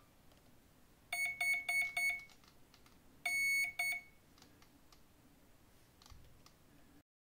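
Flycolor RC boat ESC beeping: a quick run of about four short beeps, then a longer beep about a second later. These are the tones confirming that the throttle range has been set after the trigger went back to neutral.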